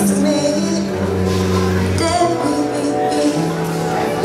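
Live acoustic band music: sustained bass notes and keyboard chords changing every second or two, with light hand percussion and a woman's voice singing a short line.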